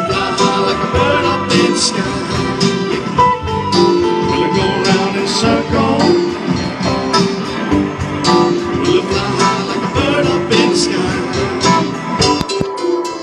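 Live band playing an instrumental stretch of a rock song: electric and acoustic guitars over a drum kit, with steady drum hits under the guitar lines.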